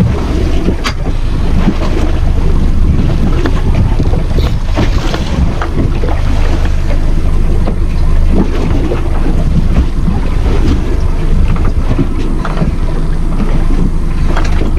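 Wind buffeting the microphone on a small boat at sea, a steady low rumble, with water lapping and slapping against the hull in short irregular knocks and splashes.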